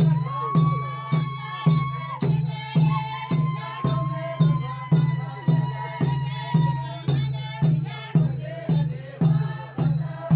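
Traditional group-dance music with a steady, even beat of about two sharp strikes a second, carrying a long held high note through the first two-thirds.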